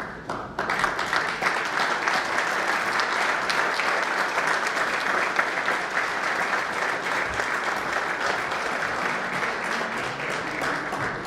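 Audience applauding, with many people clapping. The applause starts about half a second in and keeps going steadily.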